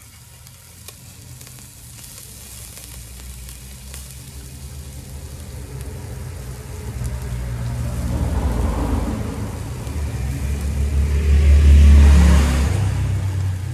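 Beef sizzling on a small tabletop grill, under a motor vehicle's low engine rumble that swells steadily, is loudest near the end and then begins to fade, as a vehicle passing close by would.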